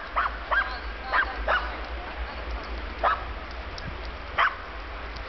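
Dogs at play giving short, high yips and barks: a quick run of them in the first second and a half, then single ones about three and four and a half seconds in.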